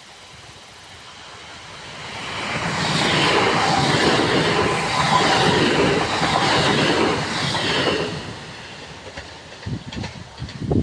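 Train passing close by, its wheels clattering over the rail joints. The sound builds over about two seconds, stays loud for several seconds, then falls away near the end.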